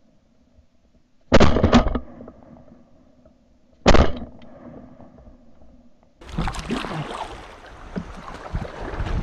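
Three shotgun shots at flushing Canada geese, two in quick succession and a third about two seconds later. Near the end, steady water and wind noise from a kayak on the river.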